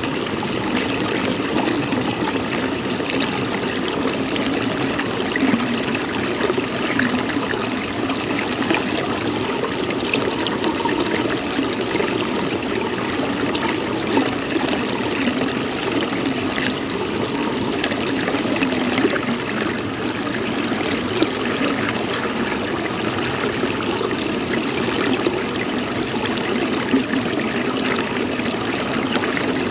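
Steady running water, trickling.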